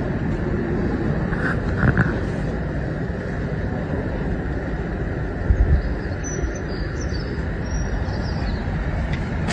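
Steady low rumbling background noise, with a few faint high chirps in the second half.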